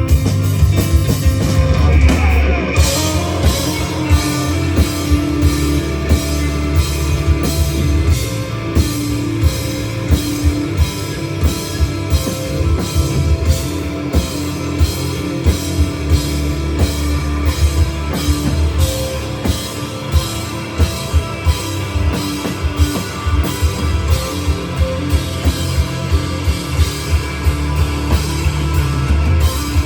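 Rock band playing live: drum kit keeping a steady beat under electric guitar and bass. The cymbals and drums come in fuller about three seconds in.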